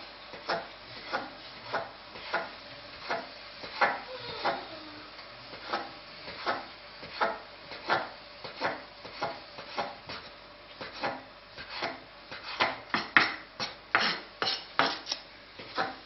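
Chef's knife slicing rolled egg-pasta dough into noodles on a floured wooden cutting board: regular knocks of the blade on the board, about one and a half a second, coming quicker and louder near the end.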